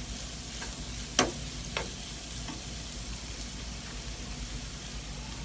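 Clam meat sizzling as it stir-fries with garlic and chilies in a frying pan, stirred with a metal spoon that clinks sharply against the pan twice, about a second and just under two seconds in.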